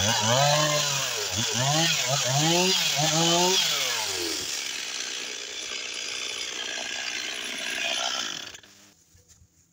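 Two-stroke STIHL chainsaw revved up and down about five times, then running steadier at lower speed, and stopped about eight and a half seconds in.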